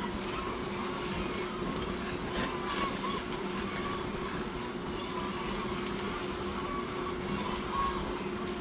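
Steady mechanical hum with two constant low tones, a faint wavering higher sound and a few light clicks.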